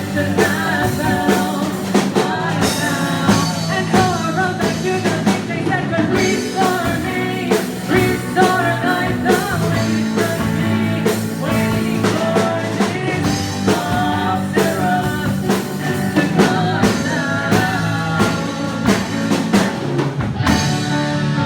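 Live rock band playing a song with a lead vocal over drum kit, electric guitars and piano, the drums keeping a steady beat.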